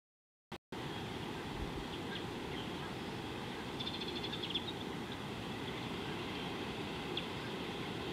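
Steady outdoor background hiss from an open-air wildlife microphone, with a short run of rapid high chirps about four seconds in and a lone tick a few seconds later. The sound drops out to dead silence for the first moment before the hiss resumes.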